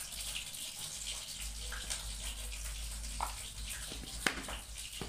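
Ground spices frying in hot oil in a cooking pot, a steady sizzling hiss, with a couple of sharp clicks a little past three and four seconds in.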